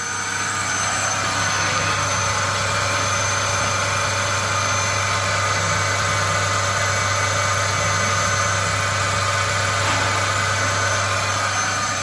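A single-bucket milking machine's 1.5 HP vacuum pump unit running steadily, with a constant low hum.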